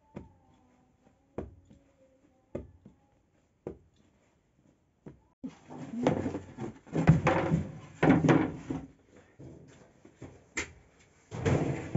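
Soft thumps of dough lumps being dropped onto a flour-covered cloth, about one a second. About halfway in, louder scraping and knocking as long wooden dough boards are shifted about.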